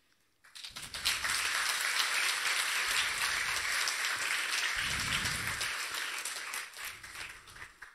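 Audience applauding in a hall, starting about half a second in, holding steady, then thinning out and dying away near the end.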